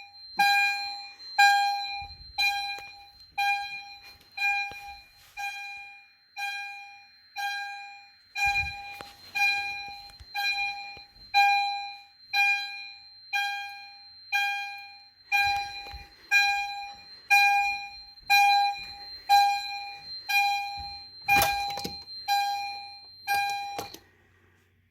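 Edwards Genesis fire alarm chime strobe sounding in alarm: a repeating bell-like chime, about one strike a second, each strike fading, over a steady high-pitched tone. It cuts off suddenly near the end, with a few knocks during the run.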